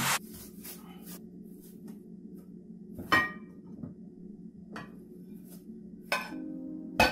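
Kitchen handling noises: a few scattered knocks and clinks of dishes and a cutting board on the counter, the sharpest a brief ringing clink about three seconds in, over a steady low hum.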